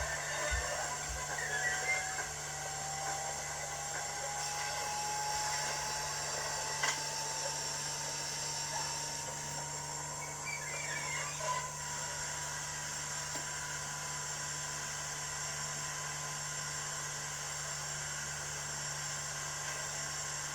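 Model K class steam locomotive's DCC sound decoder playing a steady steam hiss through its speaker, over a steady low hum. A faint whine, typical of the model's motor and gears turning on the rolling road, rises slowly in pitch over the first dozen seconds and then holds steady.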